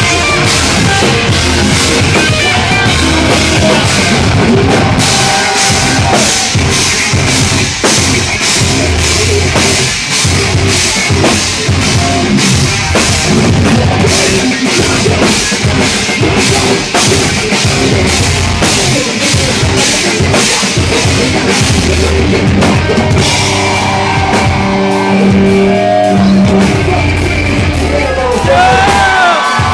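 A live progressive metal band playing loud: steady, fast drum hits under heavy electric guitars and bass, with the vocalist singing into a microphone, most clearly near the end.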